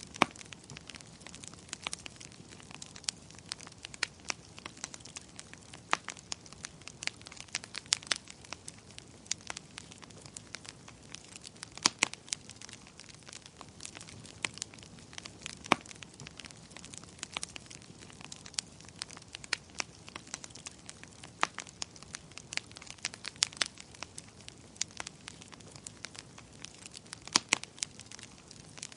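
Wood fire crackling, with irregular sharp pops and snaps scattered over a low steady hiss.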